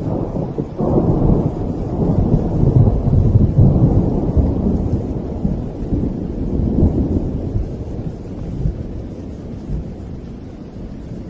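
A long roll of thunder over steady rain: the rumble swells about a second in, is loudest a few seconds later, then slowly dies away.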